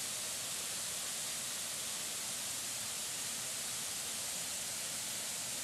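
Black Linn Falls, a waterfall on the Rotten Calder, giving a steady, even hiss of falling water.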